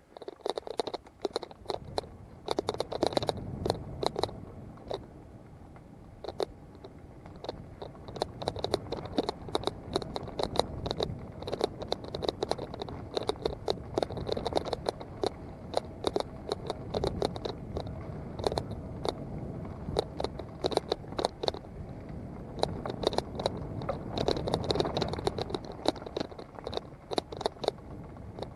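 Mountain bike riding down a leaf-covered dirt singletrack: tyres crunching over dry leaves and earth, with constant sharp rattling and knocking from the bike over bumps.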